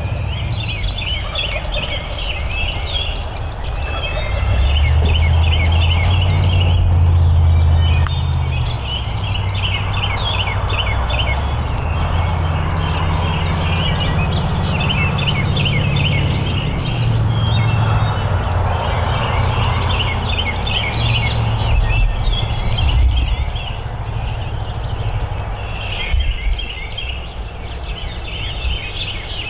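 Birds calling in repeated short phrases, group after group, over a strong uneven low rumble.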